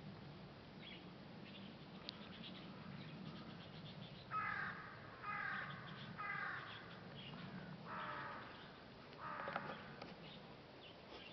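A crow cawing about five times, short raspy caws roughly a second apart, starting about four seconds in.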